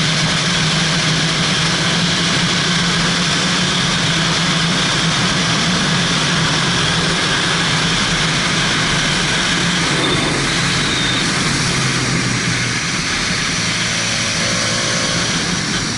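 Motorcycle engine running steadily under heavy wind rush on the camera microphone while riding; the engine note eases a little after about twelve seconds.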